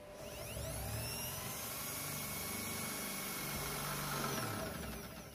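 Electric drill boring a hole through the car's inner sheet-metal panel under the boot lid. It spins up at the start, runs steadily and winds down near the end.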